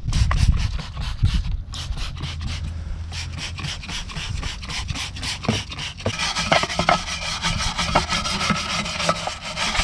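Hand scrubbing of a Mercedes W123 rear trailing arm and backing plate with cleaner: a brisk run of short rubbing strokes, turning into denser, continuous scrubbing about six seconds in.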